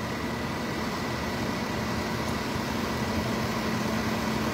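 An engine idling steadily, with a constant low hum and a fainter, higher steady whine over it.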